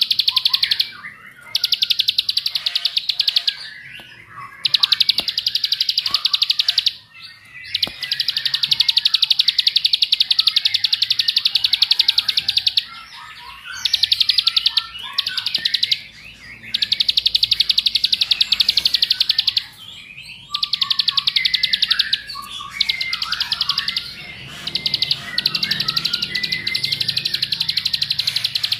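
Plain prinia singing: long bursts of a very rapid, high trill, each lasting several seconds, broken by short pauses with softer chirps between them.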